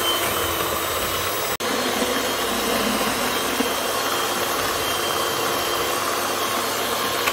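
Moulinex Easymax electric hand mixer running steadily, its beaters whisking eggs and sugar into a batter, with a very brief break about a second and a half in.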